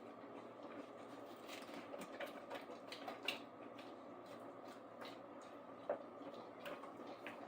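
Faint steady room hum with scattered light clicks and taps, two of them a little louder around three and six seconds in.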